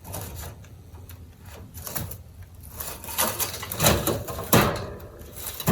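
Netherland Dwarf rabbit tearing and scratching at a woven timothy hay mat: irregular dry rustling and scraping, with the loudest few scrapes a little past the middle.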